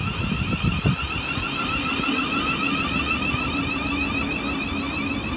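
Thameslink Class 700 electric multiple unit running past close by: a steady high whine from its traction equipment over the rumble of wheels on rail, with heavy low thudding in the first second.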